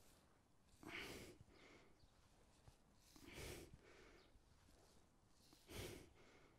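A man's quiet, short breaths out during oblique crunches, three of them about two and a half seconds apart, one with each elbow-to-knee repetition.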